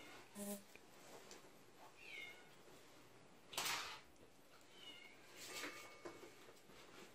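Russian Blue kittens giving a few short, faint, high mews that fall in pitch. A brief rustle, the loudest sound, comes about three and a half seconds in.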